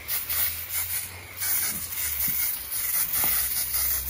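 Aerosol carpet foam cleaner hissing as it sprays onto the carpet. The hiss is lighter for the first second or so, then louder and steadier.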